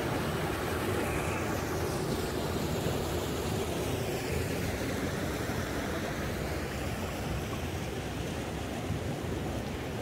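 Mountain stream rushing steadily, water pouring over a small rock cascade into a pool and running over stones.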